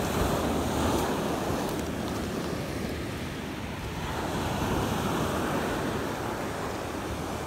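Waves breaking and washing up a sand and pebble beach, the surf swelling near the start and again about halfway through, with some wind on the microphone.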